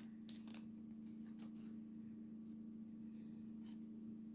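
Faint ticks and light slides of trading cards being handled and sorted, over a steady low hum.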